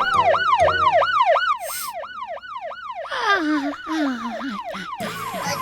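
Cartoon siren sound effect warbling fast, about three quick rise-and-fall sweeps a second. About three seconds in, a second, lower tone slides downward for a second and a half.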